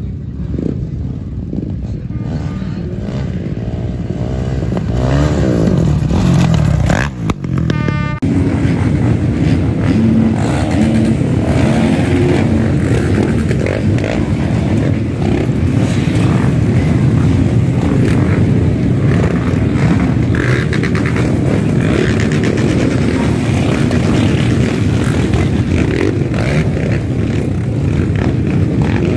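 Several off-road dirt-bike engines running and revving as a pack of riders pulls away, with one engine rising in pitch a few seconds in.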